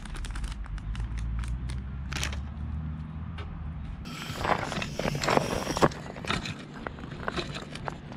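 A low steady rumble with scattered light clicks, then from about four seconds in, a dense run of crunching and scraping on loose gravel and stones.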